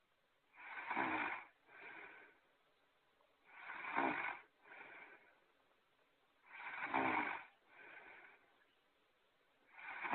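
Looped cartoon snoring sound effect. A loud snore is followed by a shorter, softer one, and the pair repeats about every three seconds, three times, with a fourth starting at the very end.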